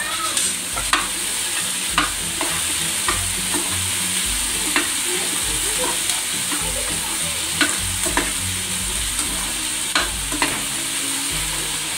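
Ivy gourd pieces and green chillies sizzling in hot oil in a pan while a metal spatula stirs them, with a sharp scrape or clink of the spatula against the pan every second or two.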